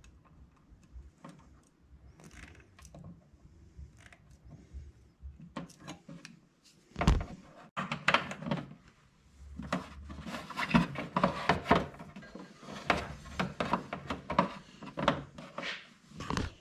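Hands working wiring at a plastic tractor dash panel: small clicks and handling noises, a sharp knock about seven seconds in, then several seconds of rubbing and scraping as wire is fed through the hole in the dash.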